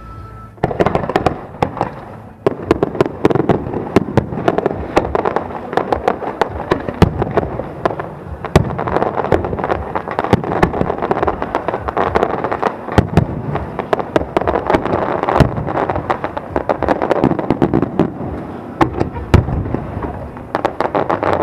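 Aerial fireworks display: a dense barrage of bangs and crackling bursts starts about half a second in and runs on almost without a break, with a brief lull around two seconds in.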